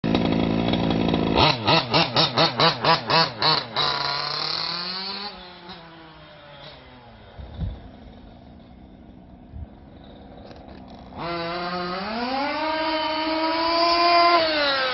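DMS 34cc reed-case two-stroke engine of a Losi Five T 1/5-scale RC truck. It runs steadily, then is blipped about four times a second, revs high and fades away. After a quieter stretch with a single thump, it comes back rising in pitch, holds high, and falls off near the end.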